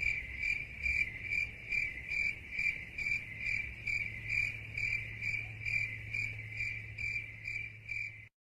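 Cricket chirping sound effect, the stock 'awkward silence' meme cue: one cricket's even, repeated chirps, about three a second, over a faint low hum. It cuts off abruptly near the end.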